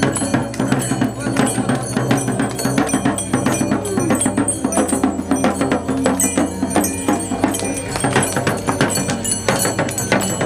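A shaman's dhyangro, a handled double-headed frame drum, beaten fast and steadily with a stick, while the brass bells strapped to his body jingle and clang with each movement. Steady low tones run underneath and change pitch a few times.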